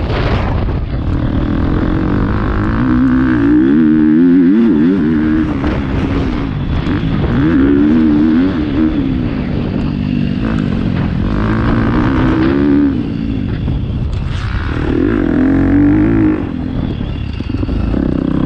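Motocross bike engine revving up hard and dropping back in about four surges as the rider accelerates down the straights and shuts off for the corners.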